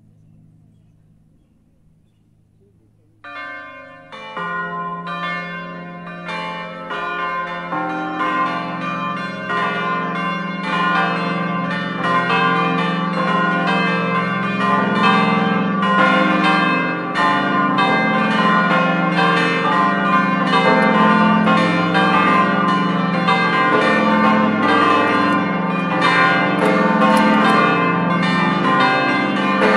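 The eight church bells of a bell tower, weighing from 220 kg to 2800 kg, begin ringing about three seconds in. Lower bells join one after another, and the sound builds into a full peal of many bells ringing together and overlapping.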